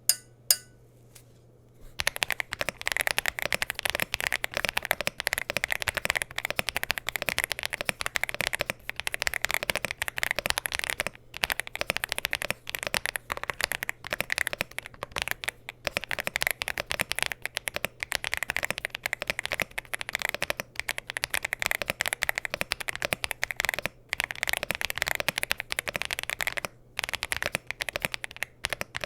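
Fast typing on a Leobog HI75C Pro mechanical keyboard with Leobog ICE Vein switches, PBT cherry-profile keycaps, an FR4 plate and a gasket-mounted aluminium case. A few single keystrokes come at the start, then a dense, continuous stream of key clacks from about two seconds in, broken by brief pauses.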